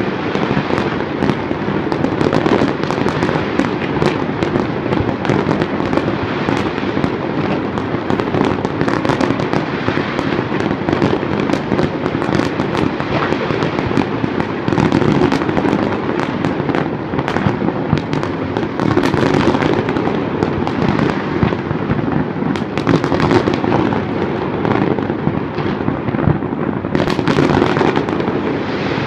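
A fireworks display in full swing: a dense, continuous barrage of bangs and crackling with no let-up.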